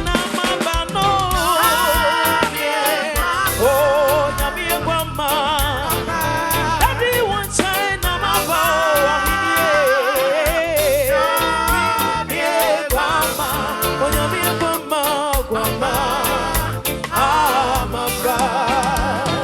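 Upbeat gospel music with a wavering sung or played melody over a steady drum beat.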